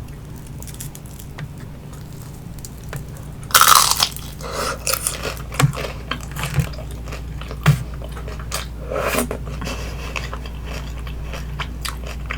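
Close-miked bite into a crispy vegetarian spring roll about three and a half seconds in, a loud crackly crunch, followed by chewing with scattered crisp crackles and mouth clicks.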